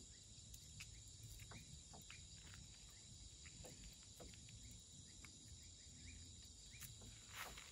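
Faint night ambience of insects trilling steadily at a high pitch, with a few small clicks from a fishing line and hook being handled.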